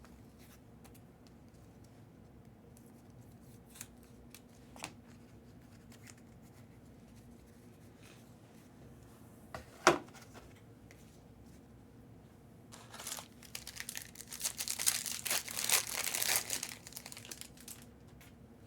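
Foil wrapper of a trading-card pack being torn open and crinkled, a dense crackling run of about three and a half seconds in the second half, after a single sharp click near the middle and a few faint handling clicks.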